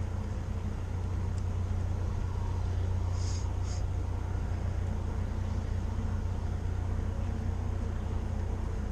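Steady low rumble of a mountain bike ride on a dirt trail, heard through a chest-mounted camera: wind buffeting the microphone and tyre noise on the trail. Two brief high chirps about three seconds in.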